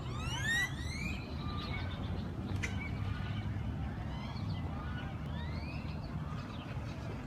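Birds calling in rising chirps, a quick run of them at the start and fainter ones later, over a steady low rumble. A single sharp click sounds a little over two seconds in.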